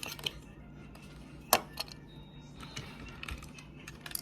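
Scattered sharp clicks and small knocks of a talking toy engine's plastic parts and gears being fitted back into place, the loudest about a second and a half in.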